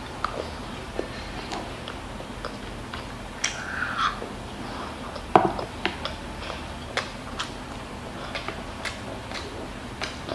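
Mukbang eating sounds close to the microphone: chewing and scattered sharp clicks of plastic training chopsticks and a wooden spoon, with one louder knock about five seconds in.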